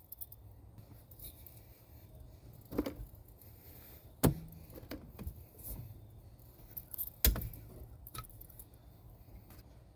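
Metal hand tools and parts clinking and knocking in a few sharp, separate strikes, the loudest about four and seven seconds in, with lighter rattles between.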